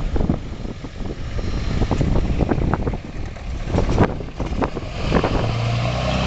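Wind buffets the microphone over the low rumble of a grain train's hopper cars as they roll away. About five seconds in, a pickup truck drives past close by with its engine running in a steady low hum that grows louder.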